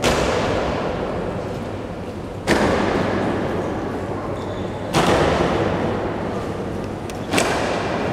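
Honour guard's ceremonial slow march: boots striking the stone floor in unison, four stomps about two and a half seconds apart, each one echoing through the large hall.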